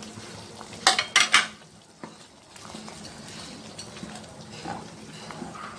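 A spatula knocking sharply against a steel kadai three times about a second in, then stirring through a boiling curry gravy with a steady low bubbling.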